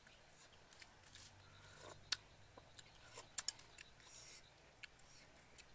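Metal spoon clinking and scraping against a ceramic soup bowl: a few sharp clinks, the loudest about two seconds in and two close together about three and a half seconds in.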